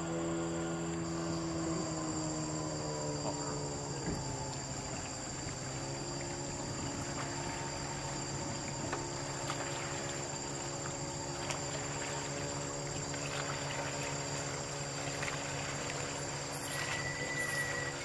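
A boat engine running steadily, its pitch dropping about three seconds in, over a steady high chorus of night insects.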